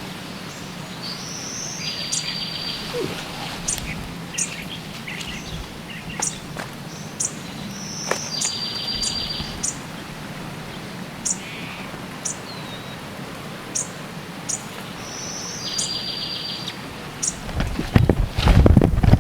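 Rainforest birds calling over a steady background hiss. One bird three times repeats a short high note followed by a fast buzzy trill, about seven seconds apart, among scattered sharp high chirps. Near the end there is a burst of loud rustling and knocking close to the microphone.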